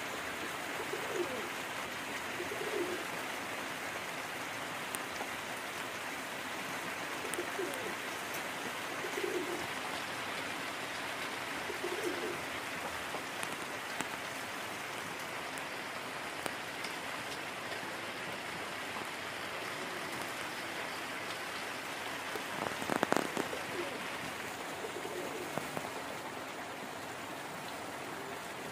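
Domestic pigeon cooing: about six short low coos, most in the first dozen seconds and one more near the end, over a steady hiss. A brief louder rustle comes about 23 seconds in.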